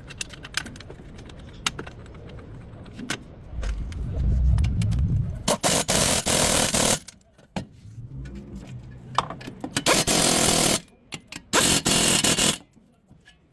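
A power tool runs in three short bursts of about a second each, with a low rumble before the first and scattered metallic clicks of tools between.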